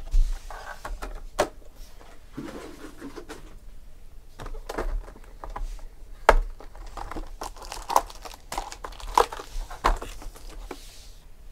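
Foil-wrapped trading card packs and a cardboard card box being handled: crinkling and rustling, broken by sharp taps and knocks as packs and box are set down on the table.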